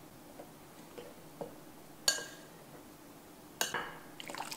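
Utensils clinking against a glass mixing bowl as baking ingredients are combined: a few soft taps, then two sharp ringing clinks about a second and a half apart, the second followed by a quick run of smaller clinks near the end.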